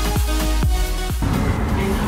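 Electronic background music with a heavy beat about twice a second, which cuts off abruptly about a second in, leaving a low steady rumble.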